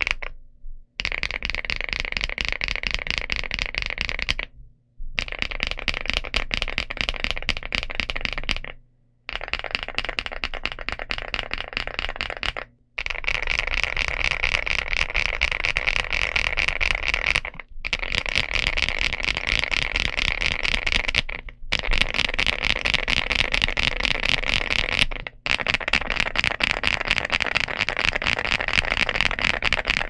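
Fast, continuous typing on a stock Rainy75 mechanical keyboard with KiiBoom Topaz linear switches, a polycarbonate plate and double-shot ABS Cherry-profile keycaps. The keystrokes come as dense, rapid clacks in runs of three to four seconds, with short pauses between the runs.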